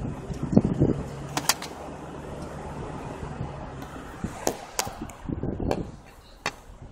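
Low, steady engine hum of a nearby vehicle, fading after about the first half. A few sharp clicks and knocks are heard, the loudest about one and a half seconds in and again between four and a half and six and a half seconds in.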